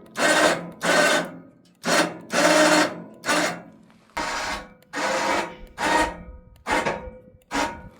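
Hand sawing through wood: about ten rasping saw strokes, a little faster than one a second, each with a short pause between.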